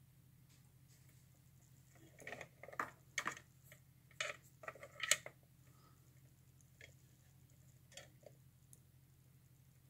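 Small plastic clicks and taps from handling a USB digital microscope, its cable and stand: a quick cluster of clicks around the middle, then a few scattered single clicks. A faint steady low hum sits underneath.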